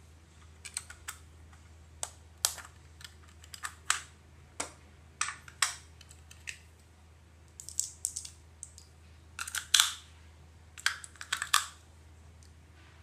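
Small hard plastic parts and packaging being handled: an irregular run of sharp clicks and brief rustles, thickest and loudest a little past the middle.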